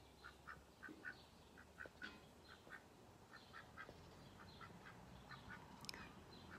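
Faint, soft duck calls: short quacks repeated about three times a second, often in pairs. A single sharp click sounds near the end.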